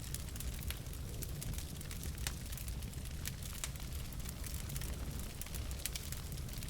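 Wood fire burning in a fireplace: a steady low rumble of flames with irregular sharp crackles and pops from the burning logs, several a second.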